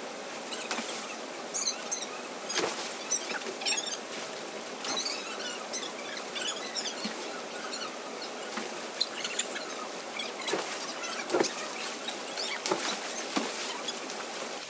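Short, high, squeaky chirps, like small birds, come again and again over a steady rush of river water, with scattered sharp splashes and knocks from swimmers in the pool.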